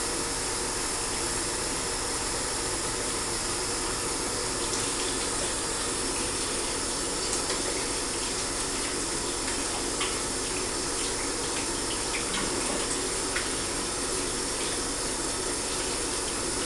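Bathroom sink faucet running steadily. Hands are rubbed and rinsed under the stream, adding light splashes from about four seconds in.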